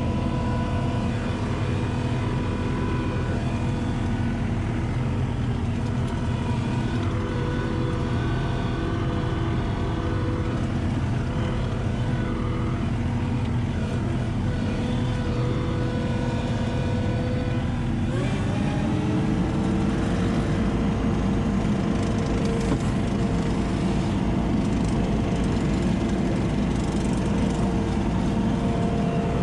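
ASV RT-40 compact track loader's diesel engine running steadily, heard from inside the cab as the machine drives with a loaded bucket. About two-thirds of the way through, the engine speed rises and it runs a little louder from then on.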